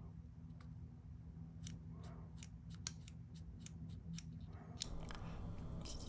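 Faint, light clicks of a disassembled brake light switch being handled: the plunger pressed in and released in its opened plastic housing, a quick run of a dozen or so clicks between about one and a half and five seconds in, over a steady low hum.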